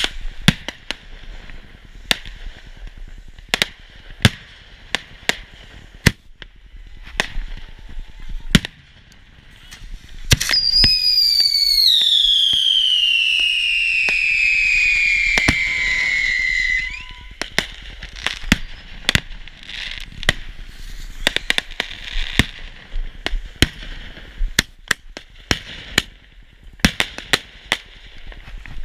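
Consumer fireworks going off, with scattered sharp bangs and crackling pops throughout. About ten seconds in, a loud whistling firework screams for about six seconds, falling steadily in pitch before it cuts off.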